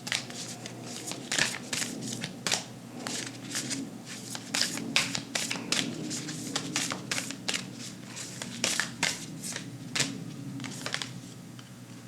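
A deck of oracle cards being shuffled by hand: quick irregular riffles, slides and taps of the cards, over a faint steady low hum.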